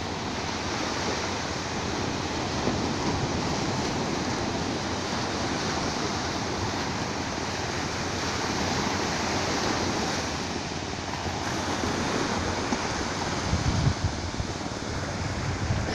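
Small sea waves breaking and washing up a flat sandy beach, a steady surf wash. Near the end, a few low gusts of wind buffet the microphone.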